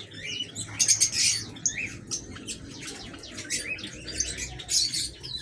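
A flock of small aviary birds chirping and calling, many short overlapping chirps and squawks, with louder clusters about a second in and again near the end.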